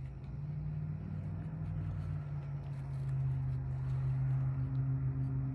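A man's low voice holding a long chanted note, stepping down to a lower note about two seconds in and sustained to the end.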